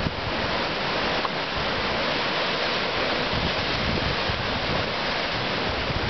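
Pacific Ocean surf washing and churning white through channels between rocks, a steady rush of water, with wind buffeting the microphone.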